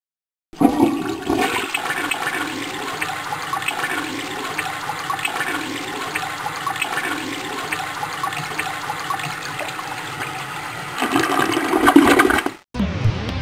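Toilet flushing: water rushing and swirling down the bowl, starting suddenly about half a second in, swelling louder near the end and cutting off abruptly.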